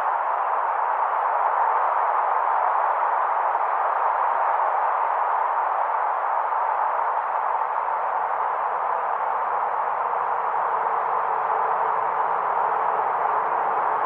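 Windy-night ambience: wind blowing in a steady, even rush with a faint whistling tone in it.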